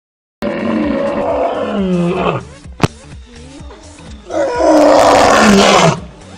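An old lion roaring: two long, loud roars, each dropping in pitch at its end, with a quieter grunting stretch between them. A single sharp click sounds between the two roars.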